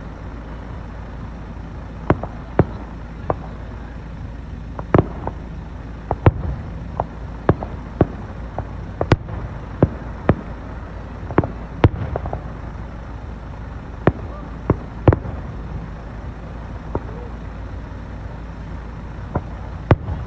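Fireworks shells bursting: a string of sharp bangs at irregular intervals, roughly one a second, some in quick pairs, thinning out after about fifteen seconds.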